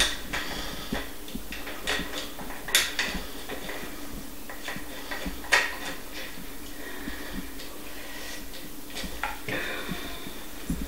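Scattered clicks and knocks of the metal detector's plastic control box being handled and fitted onto its shaft, the sharpest about three seconds and five and a half seconds in.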